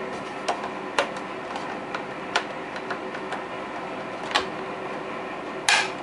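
Hard plastic clicks and knocks from handling a 1985 G.I. Joe Cobra Moray hydrofoil toy as its removable torpedo is fitted back under the hull. There are about five separate clicks, the last a little longer, over a steady low hum.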